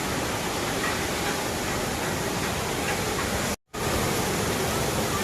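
Waterfall rushing in a steady, even roar of falling water. The sound drops out briefly about three and a half seconds in, then resumes unchanged.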